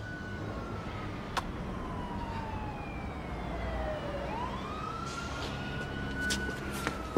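Police car siren wailing, its pitch sliding slowly down and then sweeping back up about four seconds in, with a single sharp click about a second and a half in.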